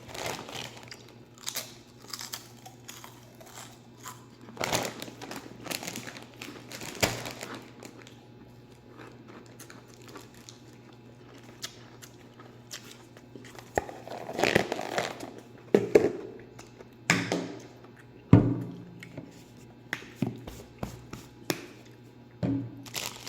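Bag of Ruffles potato chips crinkling and rustling as it is handled, in several separate bursts with sharp clicks and knocks between them, over a faint steady low hum.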